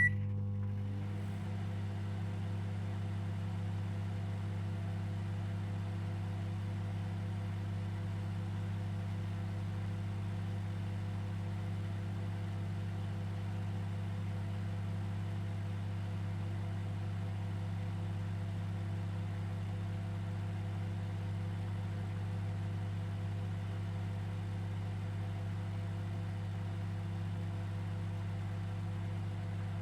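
Microwave oven running: a short high beep as it starts, then a steady low electrical hum from the oven's transformer and fan.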